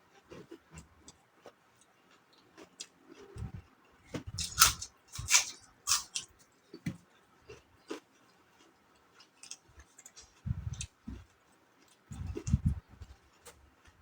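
Mouth sounds of someone eating kinilaw (vinegar-cured raw fish) with cucumber: wet chewing and crisp crunches, loudest about four to six seconds in, with scattered small clicks and a few low thumps.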